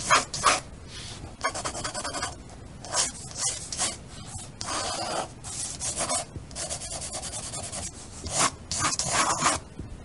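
Pencil scratching and scribbling on paper in quick, irregular strokes, like shading.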